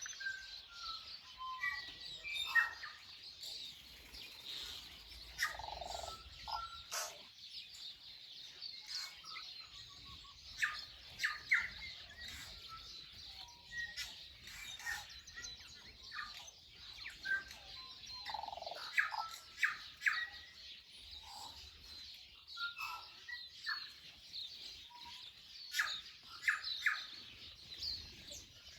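A chorus of wild garden songbirds, several birds singing and chirping at once: a dense, continuous high twittering with louder separate calls and whistled notes every second or so.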